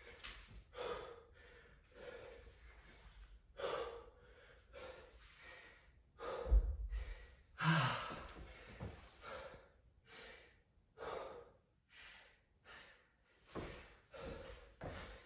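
A man panting hard, about one heavy breath a second, winded after a set of dumbbell snatches. About six and a half seconds in a dumbbell thuds down on the rubber gym floor, followed by a loud grunting exhale.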